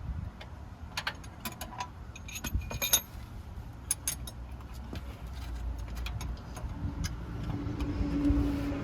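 Light metallic clinks and jingles of small metal objects, such as keys or hand tools, in a quick cluster during the first few seconds. Then a steady low hum grows louder toward the end.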